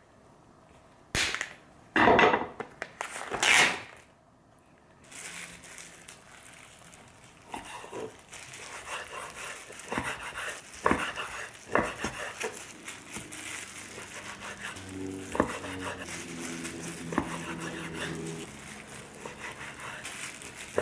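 Plastic film on a tray of raw chicken thighs being slit and torn open, making three loud crinkling rips in the first few seconds. Then a chef's knife cuts the thighs into bite-size pieces on a wooden cutting board, with a steady run of slicing sounds and repeated knocks of the blade on the board.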